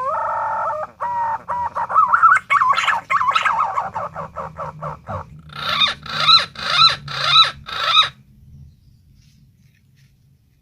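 Punai daun green pigeon calling: a warbling whistled song of quick notes sliding up and down, ending in a run of about five looping whistles that stops about eight seconds in.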